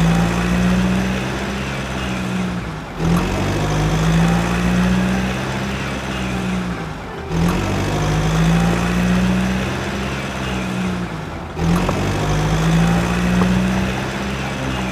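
Truck engine sound running steadily with a low hum, repeating in identical cycles about every four seconds, each cut short by a brief break before it starts again.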